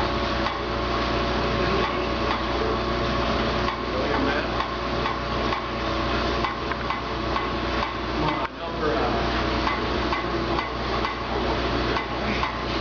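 Old belt-driven machine-shop machinery running with a constant hum and a dense clatter of light metallic clicks and knocks, while the index crank of an 1870s milling machine's dividing head is worked by hand.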